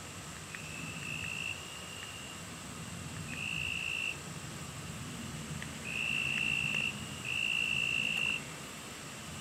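Insects trilling at dusk: a steady high-pitched trill that starts and stops four times, each run lasting about a second, over a constant thin higher whine.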